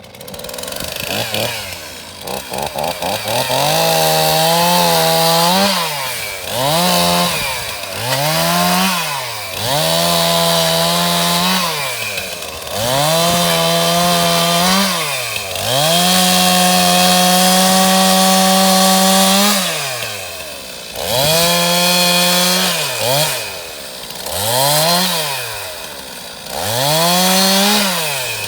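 Stihl two-stroke chainsaw cutting a fallen wattle tree for firewood. It is revved up to full speed again and again, about nine times. Each time it holds a high, steady pitch for one to three seconds, the longest about halfway through, then drops back toward idle.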